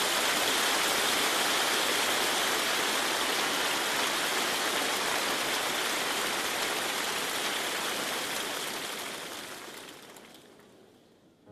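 Large concert audience applauding, a dense steady clapping that dies away over the last couple of seconds.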